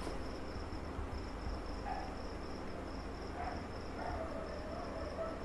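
Whiteboard marker writing, with a few faint short squeaks of the felt tip on the board, over a steady high-pitched background trill.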